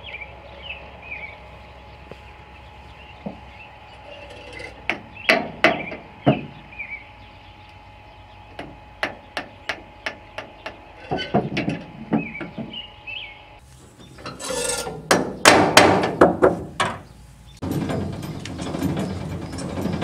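Metal clicks and knocks as a gooseneck trailer coupler's latch is worked with a long pole, then a denser burst of metal clanking and rattling. Birds chirp faintly at first, and a steady rumble starts near the end.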